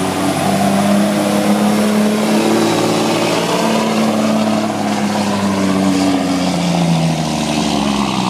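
Semi truck's Detroit Diesel engine running hard under full load as it drags a weight-transfer pulling sled, its pitch rising and dipping several times.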